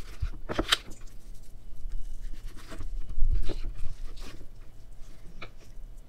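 A knife cuts and scrapes meat off goat rib bones on a cutting board, making a scatter of short scrapes and soft knocks.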